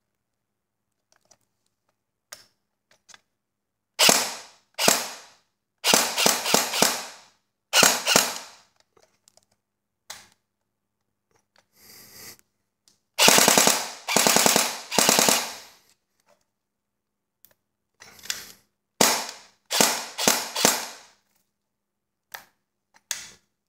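CYMA MP5SD6 airsoft electric gun (AEG) test-firing in bursts of rapid clacking shots from its gearbox and electric blowback bolt. The bursts vary in length, the longest about two and a half seconds near the middle, and a few single shots come in between and near the end.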